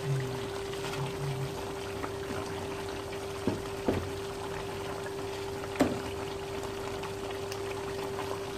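A pot of chicken pochero stew simmering and bubbling as leafy greens are dropped in, with three short knocks against the pot about halfway through, over a steady hum.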